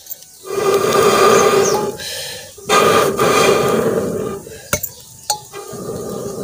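Breath blown through a metal blowpipe into the logs of a wood-fired clay stove to fan the fire: three long breathy blasts of about a second and a half each, each carrying a steady low tone from the pipe. A single sharp click falls between the second and third blasts.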